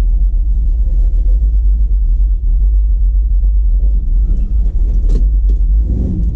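Cammed Chevy C10 pickup's engine rumbling low and steady as the truck creeps along at low speed, heard from inside the cab.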